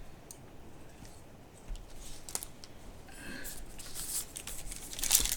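Trading card pack wrappers and cards being handled: faint rustling and a few small clicks, with the crinkling of a foil pack wrapper growing louder near the end.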